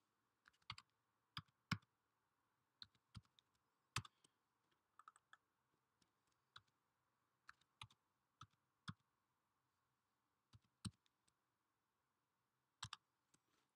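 Faint, unhurried typing on a computer keyboard: single keystrokes spaced irregularly, often a second or more apart.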